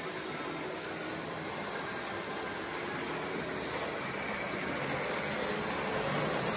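Märklin H0 model ICE 1 train running over the metal track, a steady rolling rumble with a faint motor whine that grows louder as it approaches.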